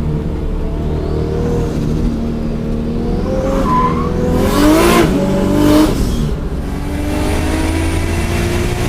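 Single-turbo RB26 inline-six in a 500 hp Nissan 240SX (S14) track car, running under load with its pitch rising as it accelerates. About halfway through, a louder rush of noise comes in and is the loudest moment, after which the engine note climbs steadily again.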